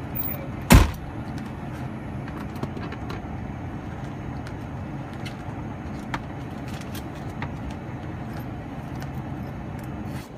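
Car door slammed shut once about a second in, heard from inside the car, followed by a steady low vehicle rumble with a few light clicks.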